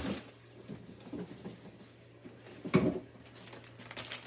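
Groceries being handled and put away: a sharp click at the start, faint knocks and rustles, and a louder short bump nearly three seconds in, over a steady low hum.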